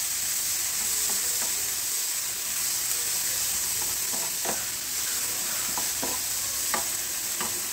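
Chopped onion, tomato and green chilli sizzling in hot coconut oil in a nonstick pan, with a steady high hiss. A wooden spatula stirs through them, giving short scrapes and taps on the pan now and then.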